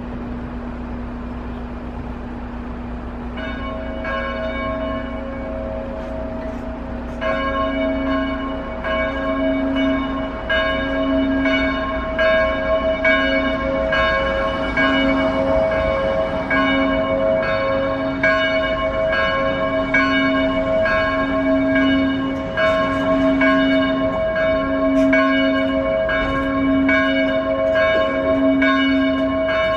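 Church bells ringing, starting a few seconds in and growing fuller and louder a few seconds later, then ringing on in a steady, repeating rhythm.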